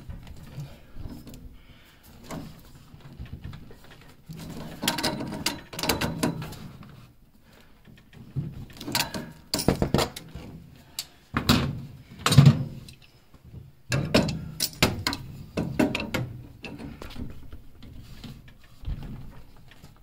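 Adjustable wrench clicking and scraping on a brass pressure relief valve as it is worked tight into a boiler fitting: irregular metal clanks and rattles in short clusters, loudest a little past the middle.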